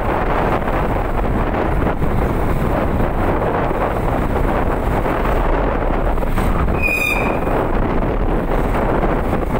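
Wind rushing over the microphone of a moving vehicle, a steady rumble of wind and road noise. About seven seconds in, a single short high beep sounds once.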